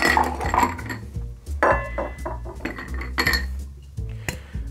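Ice cubes tipped from a metal scoop into a glass of the mixed drink, clattering and clinking against the glass in several separate goes.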